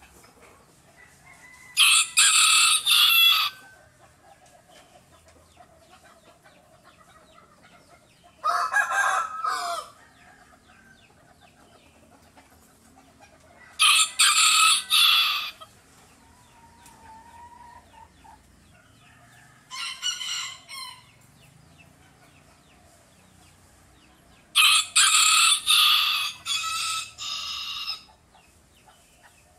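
A rooster crowing five times, about every five to six seconds, each crow broken into several notes and lasting one to three seconds. The second and fourth crows are quieter, and the last one is the longest.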